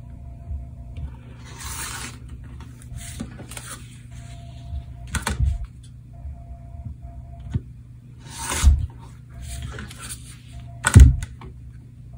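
Rotary cutter trimming a paper-pieced quilt block along an acrylic ruler on a cutting mat: several short, scratchy cuts through the foundation paper and fabric, with sharp knocks on the mat in between, the loudest near the end.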